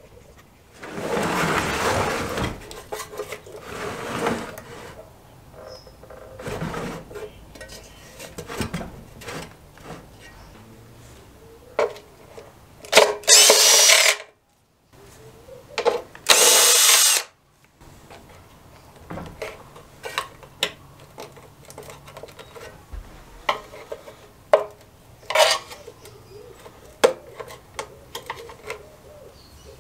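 Cordless drill-driver running in two short bursts, about two seconds apart a little past the middle, backing out bolts from the recoil starter housing of an old Suffolk lawnmower engine. Around them come clinks and knocks of tools and metal parts being handled.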